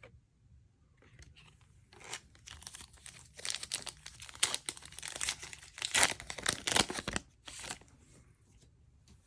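Plastic trading card pack wrapper crackling as it is torn open and crumpled by hand, a dense run of sharp crinkles from about two seconds in until near the end.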